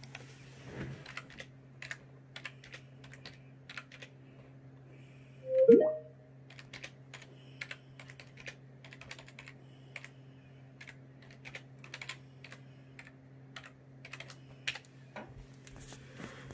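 Typing on a Microsoft ergonomic computer keyboard: irregular key clicks throughout, over a steady low hum. About six seconds in there is one brief, loud rising sound.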